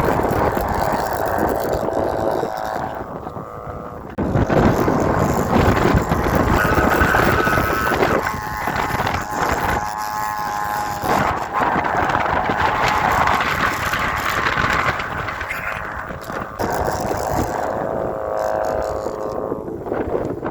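Thai kite hummer (sanu), a bow with a taut string, droning loudly in strong wind. Its buzzing pitch wavers and swells with the gusts and dips briefly before surging again about four seconds in, over wind buffeting the microphone.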